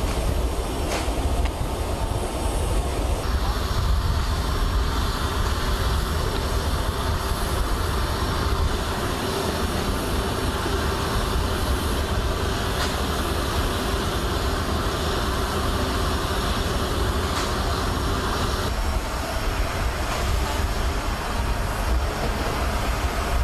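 Steady engine noise on an airfield apron, a continuous drone with a strong deep rumble. Its tone changes about three seconds in and again near the end.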